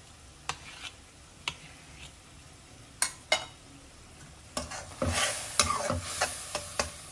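A few separate sharp clicks of a knife against a steel plate, then, about five seconds in, masala sizzling in a metal kadai as a slotted metal spatula stirs and scrapes it; the masala has cooked down to the point where the oil separates.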